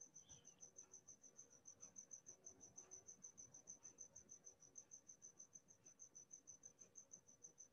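Near silence: room tone with a faint, steady high-pitched pulsing, about seven pulses a second.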